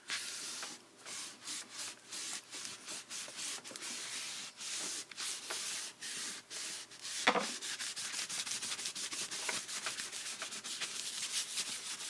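A tissue rubbed firmly over freshly glued paper to press it flat onto card: a run of dry scrubbing strokes that come quicker in the second half. There is a single sharp knock about seven seconds in.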